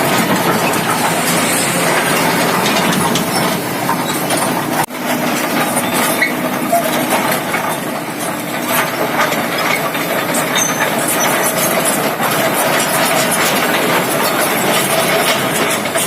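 Tracked excavator travelling on asphalt, its steel crawler tracks clanking and clattering continuously over the engine, with a brief break about five seconds in.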